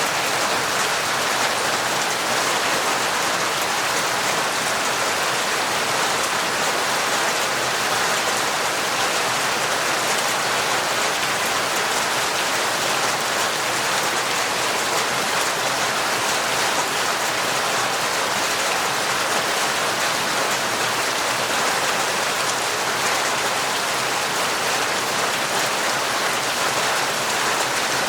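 Heavy, torrential rain falling steadily, a dense even patter of drops with no let-up.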